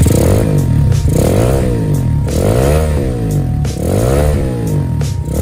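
Motorcycle exhaust through a CTS Muffler slip-on silencer, the engine revved in short throttle blips, its pitch rising and falling about once a second.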